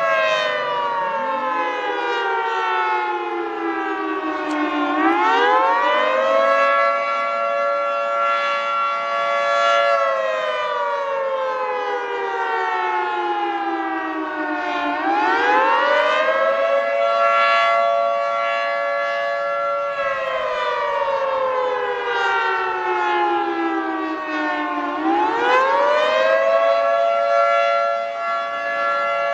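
Federal Signal 2T22 dual-tone rotating outdoor warning siren sounding the wailing attack signal. Its two-tone chord rises quickly, holds for a few seconds, then slowly falls, and the cycle repeats about every ten seconds.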